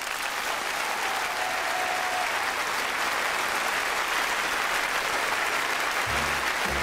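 Audience applause, steady throughout, with music starting under it near the end.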